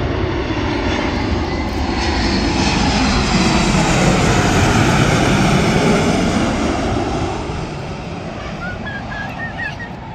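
Airbus A321 jet airliner passing low overhead on landing approach: steady jet engine noise that swells to its loudest around the middle, its whine falling in pitch as the plane passes, then fading. A few short high chirps near the end.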